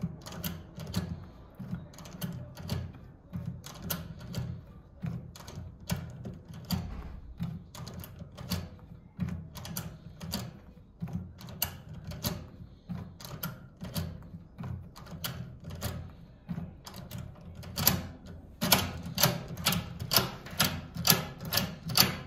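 Rapid, regular clicking of a Prodecoder Automatic decoder worked in a 7-pin Arcas Soler lock cylinder, tensioned and released over and over to set the pins, about two to three clicks a second. The clicks grow much louder for the last few seconds.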